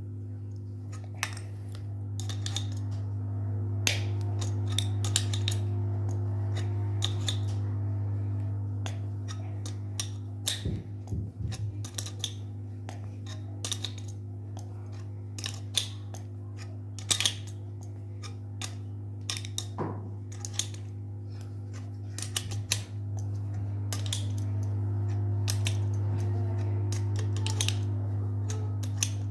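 Irregular metal clicks and taps of hand tools working to pull the seized ball bearing off the ceiling fan's shaft, over a steady low electrical hum that swells twice.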